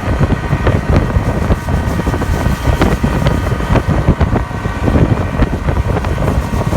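Motorboat underway: the engine runs steadily under heavy wind buffeting on the microphone, with frequent short thumps as the hull meets the water.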